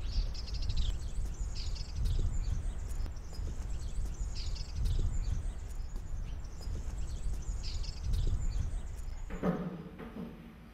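Small birds chirping in short bursts about every two to three seconds over a low rumbling outdoor background, with a brief low hum near the end.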